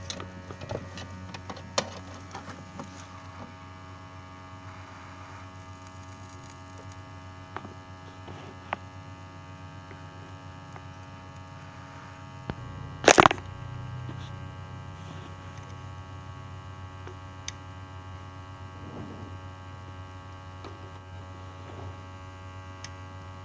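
Hot air rework gun blowing with a steady electric hum while it heats a phone's charging connector to desolder it. A few faint ticks, and one sharp click about halfway through.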